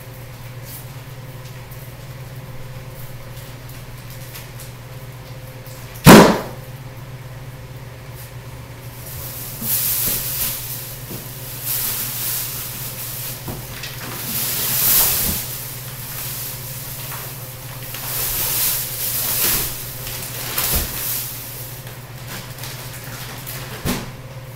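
A single sharp bang about six seconds in, then repeated rustling and crinkling of plastic packaging as sofa parts and vacuum-packed cushions are unwrapped, over a steady low hum.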